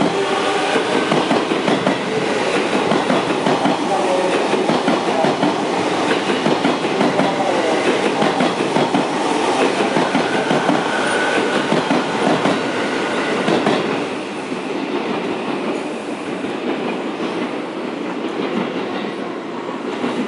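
JR East E233-2000 series electric train pulling away from a station: the traction motors' whine rises near the start, then wheels clatter over rail joints and points as the cars roll past. The sound falls off about two thirds of the way through as the train moves away.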